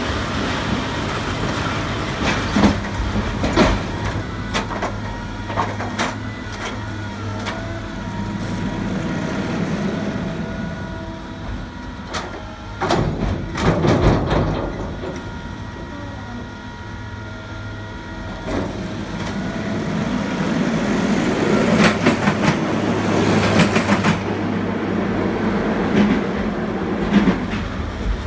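Railway work train of track-renewal machines and hopper wagons rolling slowly by: wheels clacking and wagons clanking over a steady low engine hum, with louder clanks about halfway through and again near the end.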